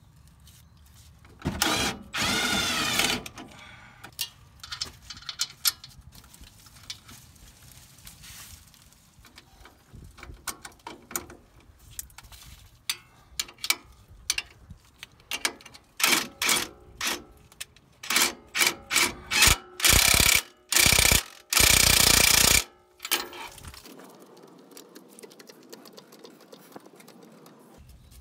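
Ratchet wrench clicking in runs as the lower shock-mount bolt is turned and tightened, with metal clinks from tools and parts and a few loud, longer bursts of ratcheting about 20 seconds in.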